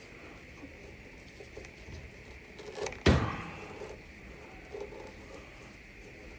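Light handling of tools and dryer parts, with a sharp click or snap about three seconds in, as a part is worked open with a tool, over a faint steady high-pitched hum.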